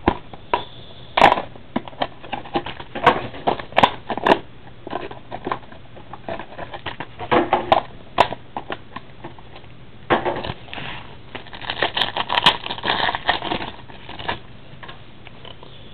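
Trading card packaging crinkling and tearing as a box of packs is opened by hand, with irregular clicks and taps from handling. The crinkling gets denser about ten seconds in.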